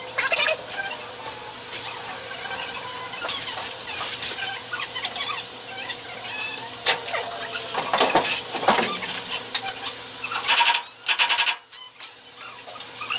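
Metal clinks and knocks from work on the rear bumper mounting bolts under a Ford F100, with a louder rapid rattling run about three-quarters of the way in.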